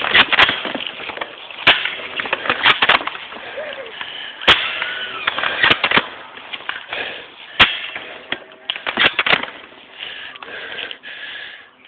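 Airsoft guns firing irregular shots, sharp pops coming about every second or so and sometimes two in quick succession.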